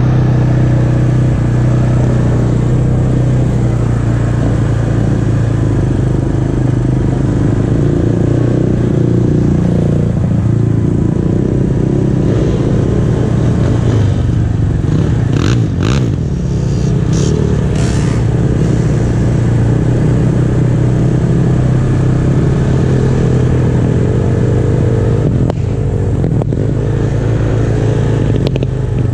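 ATV engine running steadily, heard from on board the machine, with a few brief rattles about halfway through.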